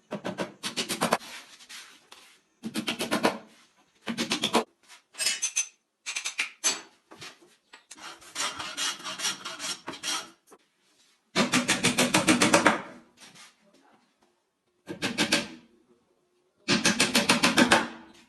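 Wood being rasped or rubbed by hand in repeated short bursts. Each burst is a quick run of scraping strokes lasting up to about a second and a half, with brief pauses between bursts.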